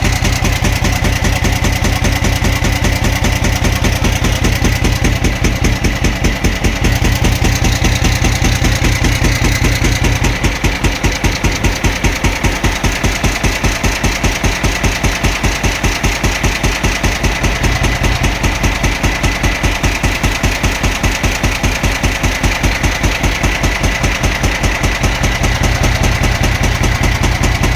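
CAMC truck engine running at idle with a steady, evenly spaced knock. The mechanic suspects a valve as the cause. The engine note eases about a third of the way through and fills out again later.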